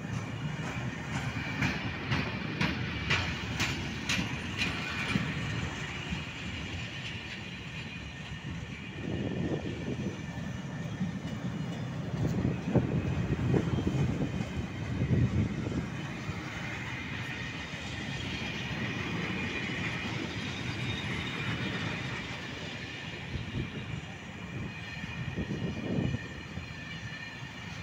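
Freight train of covered wagons rolling past: a steady rumble of wheels on rail, with rapid clicking over rail joints in the first few seconds and a thin, high steady squeal from the wheels.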